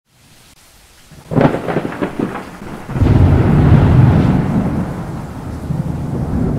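Thunder: a sudden crackling clap about a second in, followed by a loud, long low rumble that slowly dies away.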